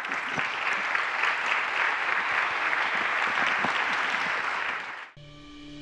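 Audience applauding. About five seconds in the clapping cuts off abruptly and music with steady held tones takes over.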